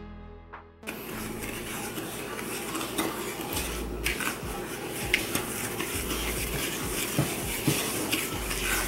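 Wooden spoon stirring a gritty mix of melted butter and granulated sugar in a glass mixing bowl, starting about a second in: a steady scraping with a few sharp knocks of the spoon against the glass.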